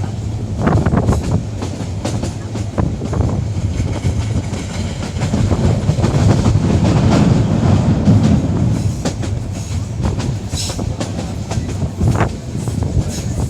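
Passenger train running along the track: a steady loud rumble with scattered clacks from the wheels, swelling a little in the middle.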